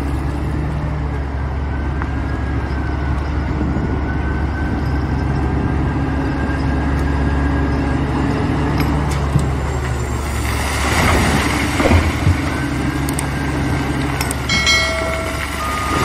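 Diesel engines of a large wheel loader and a rigid haul truck running with a steady low drone. About two-thirds of the way in, a rush of broken rock pours from the loader's bucket into the truck bed. A short electronic chime sounds near the end.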